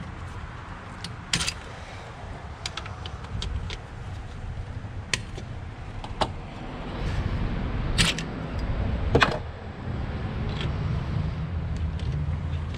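Scattered sharp clicks and knocks, the loudest two near the middle about a second apart, over a steady low rumble.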